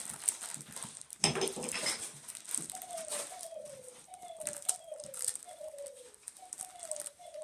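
Plastic toy packaging rustling and crinkling as it is worked open. From about three seconds in there is a quick run of about nine short, falling, coo-like tones.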